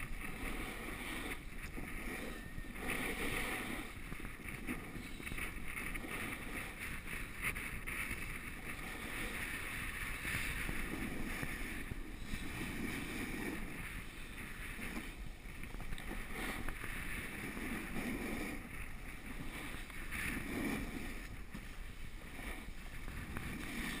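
Snowboard sliding and carving over packed snow: a steady scraping hiss that swells and eases with the turns, with wind rushing over the camera's microphone.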